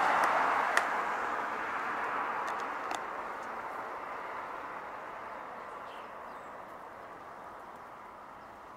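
Noise of a vehicle going by, loudest at the start and slowly fading away, with a few faint sharp clicks.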